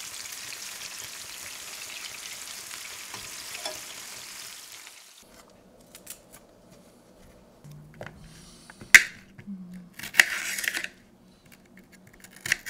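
Meatballs sizzling as they fry in tomato sauce in a skillet, with a spoon stirring. About five seconds in this gives way to a knife cutting a red bell pepper on a cutting board: a few crisp crunches and knocks, the loudest near the end.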